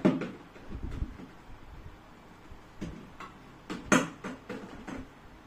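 A few sharp knocks and clatters as a drink can, a plastic water bottle and a milk carton are put into a homemade bin cut from a large plastic bottle. The loudest knock comes about four seconds in.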